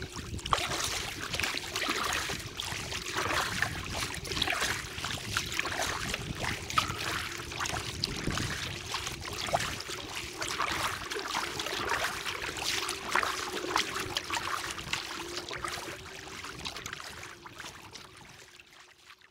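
Kayak paddle strokes splashing and water lapping against the hull, with a faint steady hum underneath in the second half; the sound fades out near the end.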